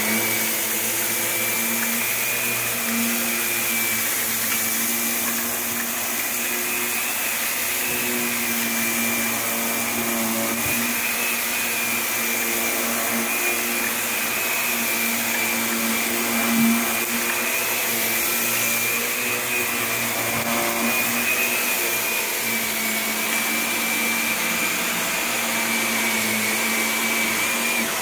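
Upright vacuum cleaner running on carpet, its motor giving a steady high whine over a lower hum, with one brief knock about halfway through.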